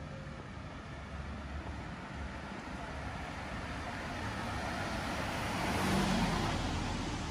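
A car driving past on the street, its tyre and engine noise swelling to a peak about six seconds in and then fading, over a steady low hum of traffic.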